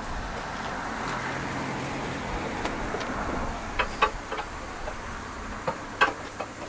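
Narrow-gauge steam locomotive being swung round on a turntable: a steady rushing rumble, then several sharp metallic clanks in the second half as the table comes to rest.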